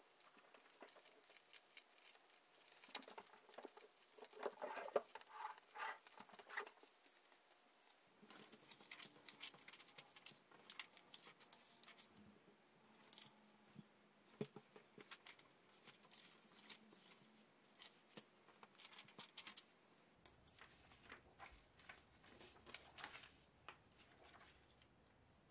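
Magazine pages and loose paper cut-outs rustling and crackling as they are handled, shuffled and laid down on a desk: an irregular run of short paper rustles, busiest in the first half.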